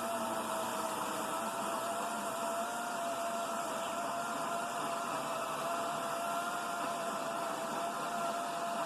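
EGO 14-inch battery-powered chainsaw running with a steady electric motor whine, cutting into an oak tree.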